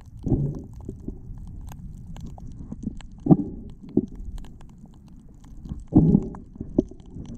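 Muffled underwater noise heard through a waterproof camera housing: a steady low rumble, with a louder surge about every three seconds and a few faint clicks.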